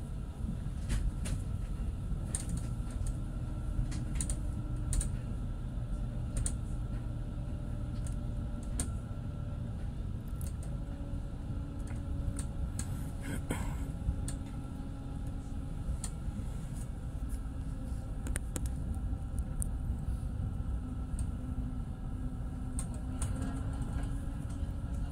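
Tram running, heard from inside the car: a steady low rumble with a faint steady hum, and irregular light clicks and rattles several times a second.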